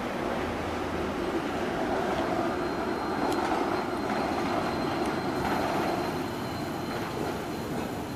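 Bombardier Variotram low-floor tram pulling away and moving off, its wheels running on the rails with a steady rumble that swells and then eases toward the end. A thin high whine comes in after a couple of seconds and holds.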